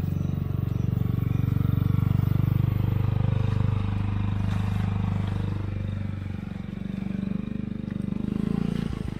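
Belt-drive automatic scooter engine running steadily under throttle. Its note drops a little in pitch about halfway through.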